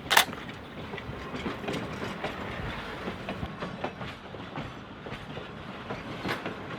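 Train rolling along jointed track, its wheels clicking irregularly over the rail joints, with one sharp clank just after the start.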